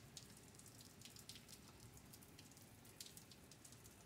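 Light rain falling, faint, heard as a soft steady hiss with many separate drop ticks.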